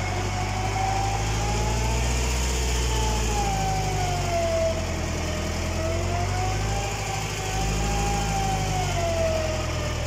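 Tractor engine running steadily under load, heard from inside the cab, while the tractor pulls a subsoiler through heavy, wet ground. A whining note slowly rises and falls over it.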